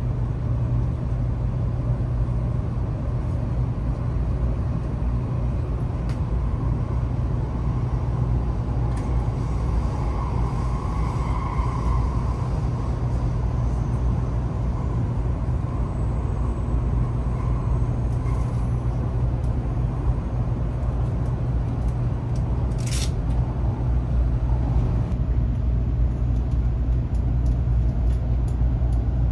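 Steady low rumble and hum inside the cabin of a Taiwan High Speed Rail 700T train car, with one brief high squeak about two-thirds of the way through.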